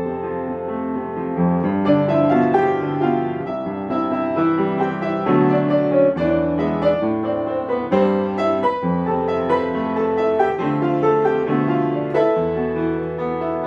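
Yamaha upright piano played solo: a melody over held chords and low bass notes, changing about once a second.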